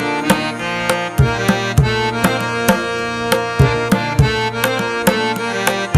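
Instrumental background music: sustained pitched tones with a steady drum beat of about two strokes a second.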